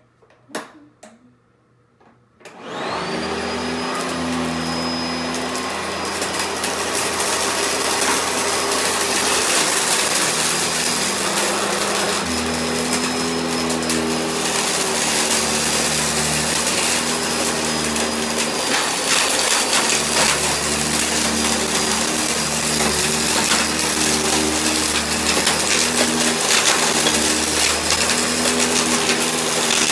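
Sanitaire upright vacuum cleaner: a couple of clicks, then about two and a half seconds in the motor starts, spinning up with a brief rising whine and then running steadily.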